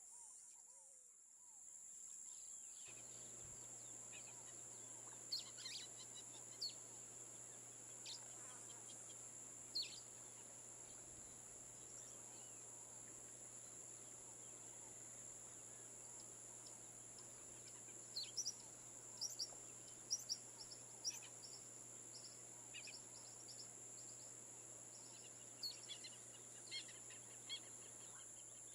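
Faint, scattered short bird chirps in a few loose clusters over a steady background hiss and low hum.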